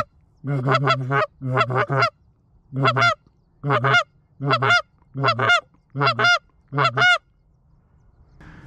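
Sean Mann Eastern Shoreman goose flute call blown to imitate geese: a run of short honks and clucks in pairs and triplets, each note breaking upward in pitch, stopping about seven seconds in.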